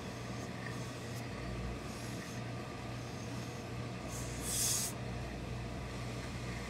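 Industrial steam iron pressing cloth, giving one short, loud hiss of steam about four and a half seconds in, over a steady low hum.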